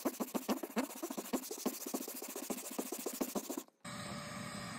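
Teak trim being hand-sanded with 80-grit sandpaper on a sanding block: quick back-and-forth scratching strokes, several a second. The sanding cuts off about three-quarters of the way through and a steady faint hiss follows.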